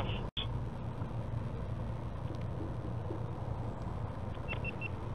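Motorcycle engine running at town speed under wind and road noise, heard from the rider's helmet camera as a steady low rumble. The sound cuts out for a split second just after the start, and three short high beeps sound near the end.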